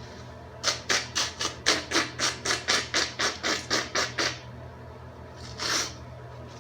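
A quick run of about fifteen short scratchy strokes, about four a second, then one longer stroke a little over five seconds in.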